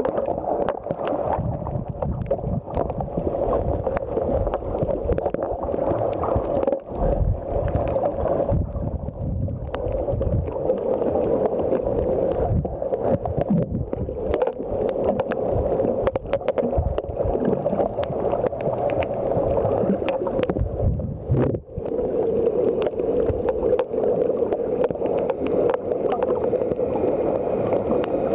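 Underwater sound picked up by a camera on a coral reef: a steady muffled rushing of water with many scattered short clicks and a faint steady high tone.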